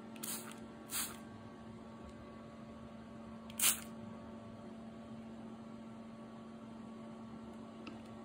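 Plastic trigger spray bottle squirting water onto a bare MDF board: two short hissing sprays in the first second, then a louder one a few seconds later. A steady low hum runs underneath.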